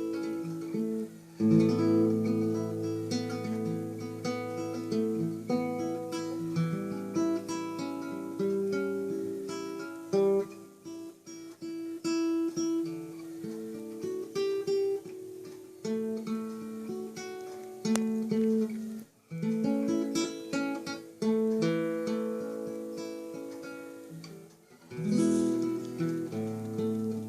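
Acoustic guitar fingerpicking a melody over a bass line, played solo, with short pauses between phrases.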